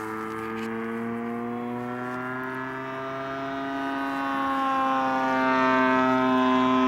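Gasoline engine of a large radio-controlled Extra 260 aerobatic plane, a DLA 64 twin-cylinder two-stroke, droning in flight, its pitch drifting slowly and the sound growing louder in the second half.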